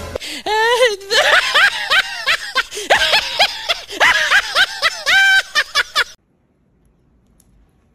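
Exaggerated comic wailing from a high-pitched voice, a run of cries that swoop up and down and sound partly like laughter. It cuts off suddenly about six seconds in.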